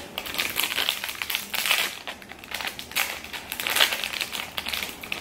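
Crinkling of a plastic snack wrapper being worked and pulled open by hand, in short irregular spells.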